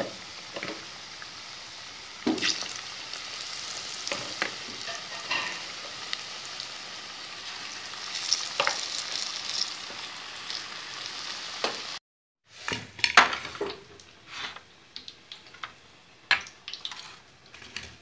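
Besan-battered potato and onion pakoras deep-frying in hot oil: a steady sizzle, with the spoon clicking against the pan now and then. About twelve seconds in the sizzle stops abruptly and gives way to a few sharp clinks of dishes.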